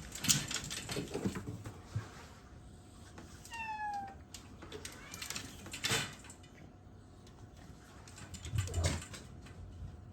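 Domestic cat meowing: a short call falling in pitch about three and a half seconds in, among several brief noisy bursts.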